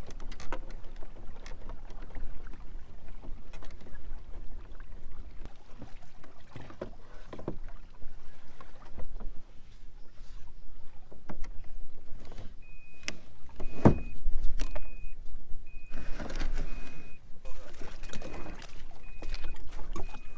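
Water and wind noise from a Hobie Pro Angler 14 pedal kayak moving through shallow water, with scattered knocks and a loud thump about 14 seconds in. From about 13 seconds on, a short high electronic beep repeats evenly, roughly every two-thirds of a second.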